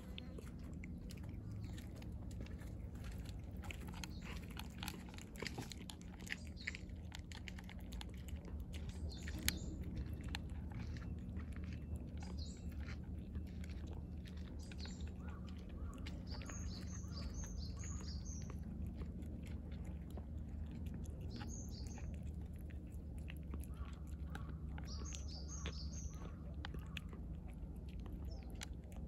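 Cat chewing a mix of dry kibble and wet food right at the microphone: a steady run of crunches, busiest in the first half. Small birds chirp in short bursts in the background from about a quarter of the way in, a few times toward the end.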